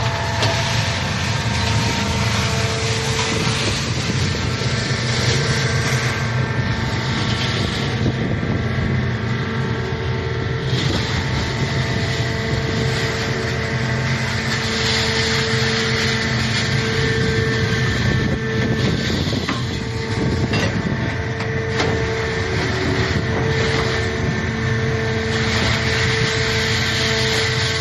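Scrap metal baler running: a steady, loud mechanical noise with a whine of several steady tones that fade in and out.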